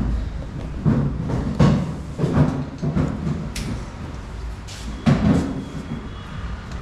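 Irregular knocks and clatter of work in a motorcycle service workshop, several short hits in quick succession over a low background rumble.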